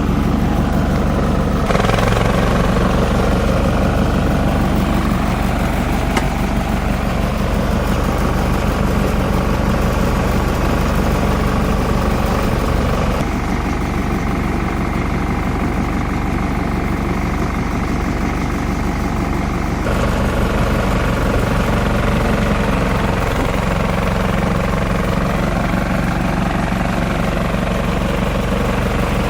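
Multi-purpose chopper-shredder machine running steadily, a loud motor drone with its tone changing abruptly about two seconds in, near the middle and about two-thirds through.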